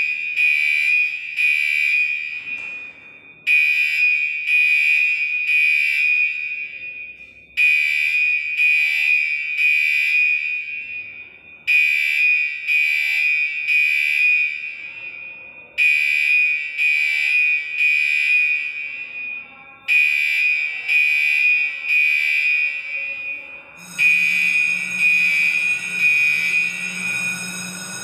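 Fire alarm sounder of an FM-200 fire suppression system sounding during a commissioning test: a shrill, high-pitched electronic tone that comes in bursts of about three seconds with a one-second gap between them. About 24 seconds in it changes to a continuous sound with a low hum beneath it.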